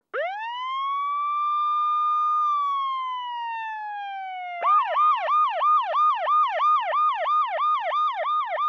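Emergency-vehicle siren: a wail that winds up, holds, then slowly falls, switching about four and a half seconds in to a fast yelp of about three rising-and-falling whoops a second.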